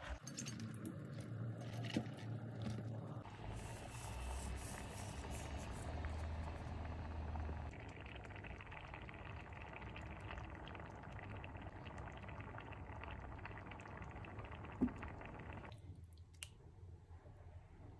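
Pot of eggplant and green-lentil stew simmering, bubbling and squelching, with two brief knocks about two seconds in and near the end.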